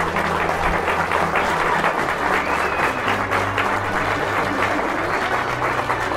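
Crowd of wedding guests applauding, with music playing underneath.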